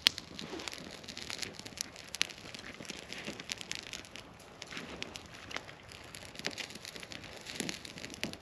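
Small kindling fire crackling with frequent sharp pops as a bundle of thin dry twigs is laid across the flames, the twigs rustling and snapping under the hand.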